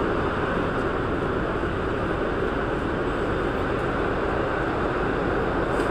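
Steady noise inside a Santiago Metro NS-2004 train: an even rumble and hiss with no separate knocks or tones.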